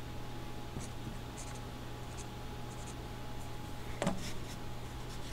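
Marker writing on a whiteboard: a series of short, faint pen strokes, with a louder stroke about four seconds in, over a steady low room hum.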